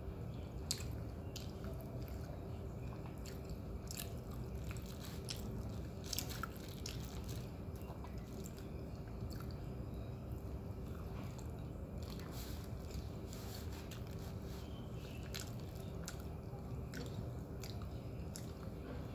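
Eating sounds: a person biting and chewing crispy roti prata, with irregular crunchy clicks and mouth smacks. A faint steady hum runs underneath.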